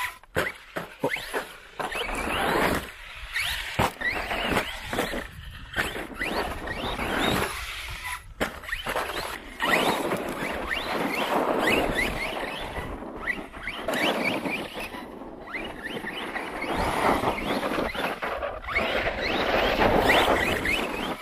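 Brushless electric RC stunt truck driving on loose dirt: a high motor whine that rises and falls over and over as the throttle is worked, over a gritty noise from the tires on the dirt. It gets louder near the end as the truck comes close.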